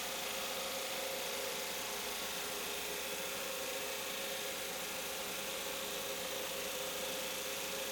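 A power tool running steadily with an even hum, at a constant pitch and level.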